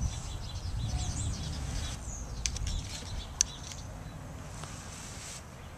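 Wind rumbling on the microphone, heaviest for the first two seconds or so and then easing, with small birds chirping in the background. A few sharp clicks, the loudest about three and a half seconds in.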